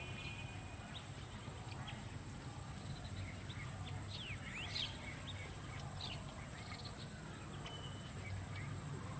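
Outdoor ambience with birds giving short chirps and quick sweeping calls, the clearest about halfway through, over a steady low hum and a thin, constant high whine.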